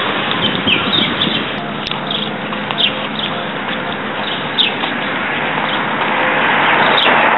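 Small birds chirping, a scattering of short falling calls, over a steady outdoor noise that grows louder near the end.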